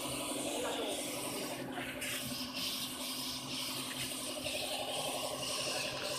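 Gravity-feed air spray gun hissing steadily as it sprays paint, with a steady low hum underneath.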